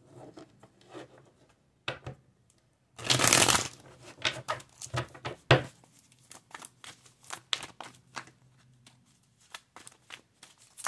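A deck of large divination cards being shuffled by hand: a long loud rush of sliding cards about three seconds in, then a run of short card slaps and flicks.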